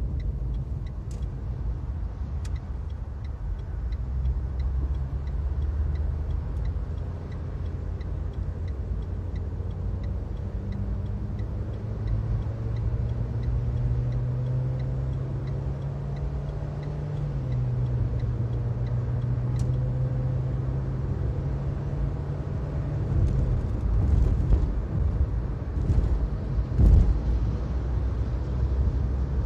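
Car interior road noise and a low engine hum while driving on a highway. The engine note rises slowly and drops back about halfway through, and a few low thumps come near the end.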